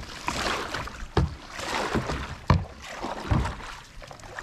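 Paddle strokes through pond water, a swishing stroke a little over a second apart, with a few low knocks of the paddle against the boat.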